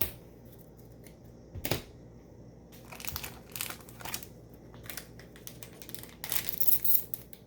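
Foil trading-card booster pack wrapper being crinkled and torn open: two sharp clicks, then a run of crackling crinkles that grows loudest near the end.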